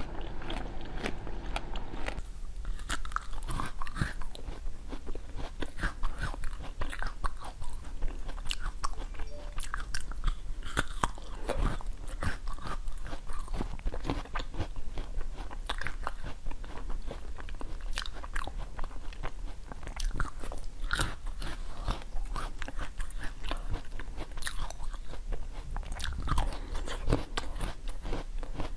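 Close-miked eating: after a soft first couple of seconds, crunchy frozen fruit is bitten and chewed, with a steady run of crisp cracks and crunches.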